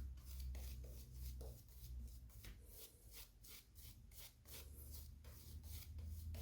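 Double-edge safety razor with a Shark Super Chrome blade scraping through lathered stubble in short, quick strokes, about three a second, over a low steady hum.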